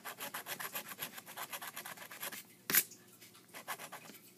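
A coin scratching the coating off a scratch-off lottery ticket in quick, rapid strokes. About two-thirds of the way in comes one sharp tap, the loudest moment, and then a few more scratches near the end.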